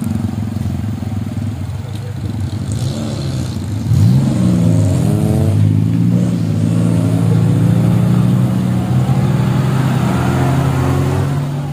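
Suzuki Jimny engine pulling up a muddy off-road climb. Its revs climb sharply about four seconds in and stay high, wavering slightly as the driver works the throttle.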